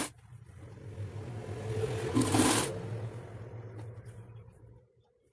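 A domestic sewing machine stitching a seam through cotton fabric: a low running hum that picks up speed, holds, then slows to a stop just before the end, with one brief louder burst of noise about two seconds in.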